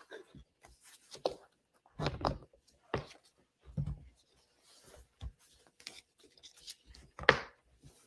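Nylon cam-buckle straps being pulled through their metal buckles and cinched down around a wooden plant press: a series of separate rubs, scrapes and knocks, the sharpest about seven seconds in.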